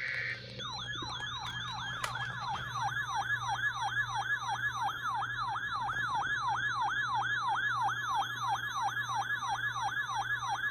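Electronic siren-style alert tone from an emergency alert recording: a rapidly repeating falling sweep, about three a second, that starts about half a second in. Before it, a short steady high data-like tone ends.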